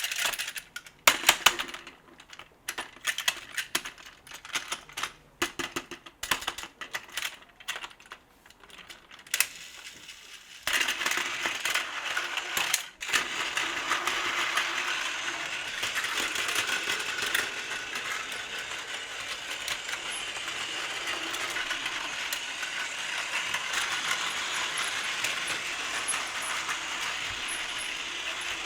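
Hard plastic clicking and clattering for about ten seconds. Then a battery-powered Plarail toy train starts and runs steadily, its small motor whirring and rattling on plastic track.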